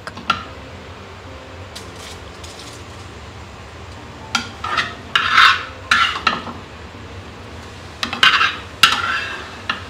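A spoon scraping thick sauce out of a pan and dabbing it over fish, in two bouts of short scrapes: the first about four seconds in, the second near the end.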